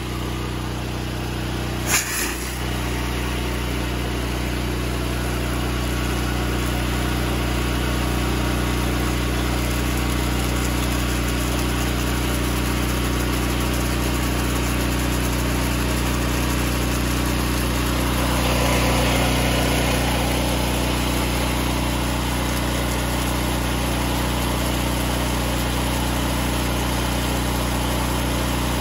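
Honda GX390 single-cylinder engine on a direct-drive pressure washer running at a steady speed. A sharp click about two seconds in, and a short rise in hiss a little past the middle.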